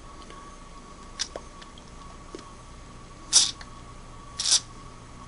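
Aerosol can of penetrating oil sprayed through its straw in two short hissing bursts about a second apart, with a light click before them.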